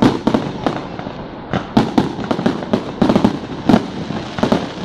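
Aerial firework shells bursting in a quick, irregular series of sharp bangs, sometimes several within a second.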